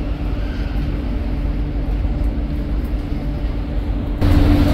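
Steady low drone of a container ship's machinery with a constant hum, mixed with rumbling wind on the microphone. It steps up louder about four seconds in.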